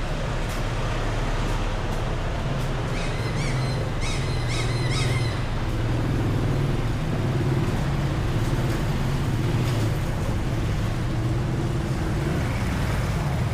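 Street traffic: motor vehicle engines running steadily with a low hum, and a brief run of short high chirps about three to five seconds in.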